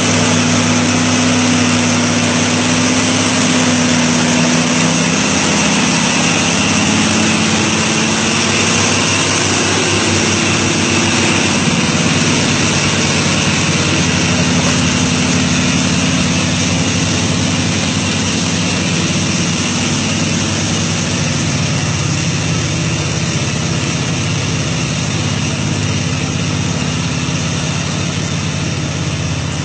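Heavy diesel engine of a log-laden truck running steadily under load as it pulls up a steep slope, its note shifting slightly a few seconds in. The load is too heavy for the truck to make the climb on its own.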